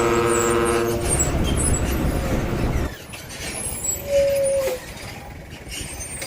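A vehicle horn holding a steady multi-note chord that stops about a second in, over a low vehicle engine noise that drops away about three seconds in; a short single tone sounds about four seconds in.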